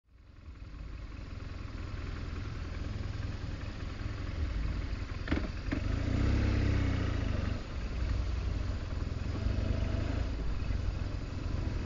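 BMW R1200GS Adventure's boxer-twin engine running as the motorcycle rides slowly through town, fading in over the first second. A single knock comes about five seconds in, and the engine sound dips briefly at about seven and a half seconds.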